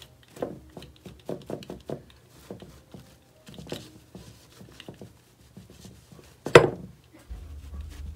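Scattered light taps, clicks and rustles as a chenille microfiber duster on a metal wand is brushed over an artificial bonsai and knocks against the granite vanity, with one much louder knock about six and a half seconds in. A low hum comes on near the end.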